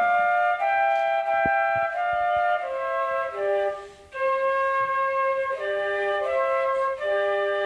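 Two concert flutes playing a slow duet in two-part harmony, one note every half second to a second, with a brief break between phrases about four seconds in.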